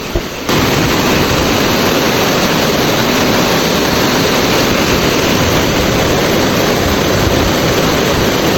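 Steady loud rushing noise of the Scale Force waterfall close by, mixed with wind buffeting the microphone; it jumps louder about half a second in and then holds level.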